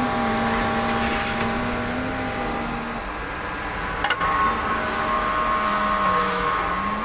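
Tsugami CNC lathe running. Its drive whine shifts in pitch over steady machine hum, with a sharp click about four seconds in and short bursts of hiss.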